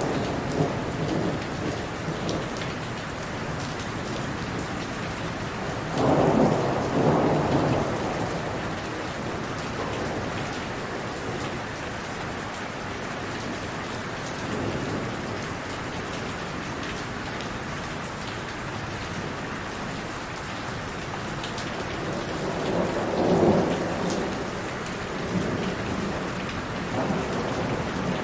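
Heavy rain falling steadily in an even hiss, with rolls of thunder rumbling louder about six seconds in and again about twenty-three seconds in.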